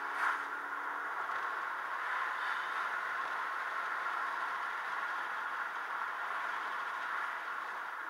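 Steady driving noise of a moving car, an even hiss of road and tyre noise heard from inside the cabin.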